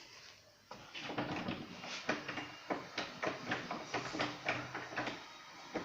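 Loose interior door handle being worked back and forth, giving a run of irregular rattling clicks and knocks, several a second, starting about a second in. The handle is loose and the latch does not hold the door shut.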